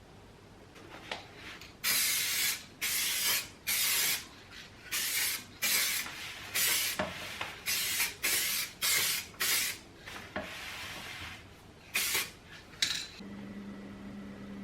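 About a dozen short hissing bursts at an uneven pace, each about half a second long. Near the end, the old table fan's electric motor starts humming steadily.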